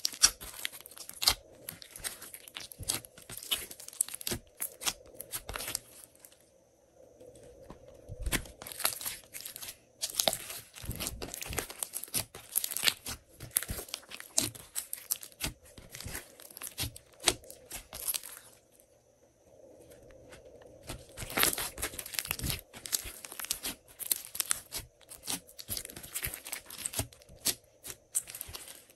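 Hands squishing, stretching and folding glossy glitter slime, making a dense run of sticky crackles, clicks and little pops, with two short lulls.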